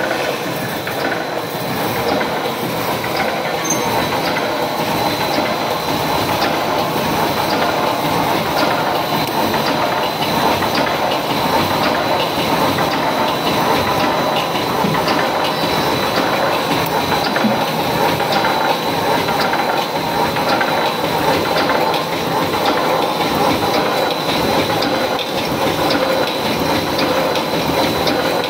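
DP-DNW-1 electric welded-wire mesh machine running: a steady mechanical clatter with a regular, repeating clack as the welding head and wire feed cycle, over a thin steady high tone.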